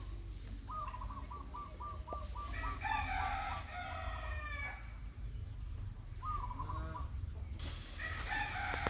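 A rooster crowing, about three seconds in and again near the end, after a quick run of short clucking notes about a second in.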